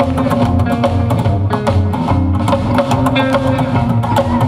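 Rockabilly band playing live: upright bass, drum kit and electric guitar, with sharp clicking hits keeping the beat under deep bass notes.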